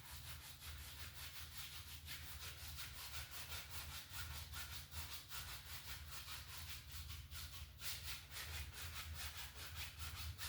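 A dry 1-inch brush scrubbing oil paint onto a wet-coated canvas in quick, even back-and-forth strokes, a few per second: a faint, scratchy rubbing as the sky colour is blended.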